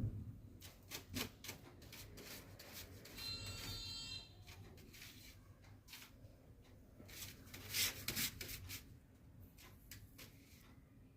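Paper bag crinkling and rustling in irregular bursts as a cat plays in it, with a brief high-pitched tone about three seconds in.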